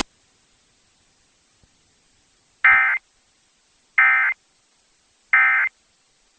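Emergency Alert System End-of-Message signal: three short, identical, buzzy SAME data bursts about a second and a bit apart, marking the close of the North Carolina Required Monthly Test. A sharp click comes just before them.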